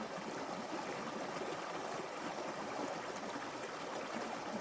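Steady rushing and babbling of a small brook, an even water noise with no breaks.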